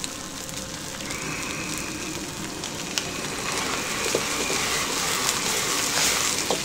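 Small whole fish, scales left on, sizzling and spitting in hot oil in a carbon-steel wok, growing louder toward the end as the wok is swirled, with a few light clicks.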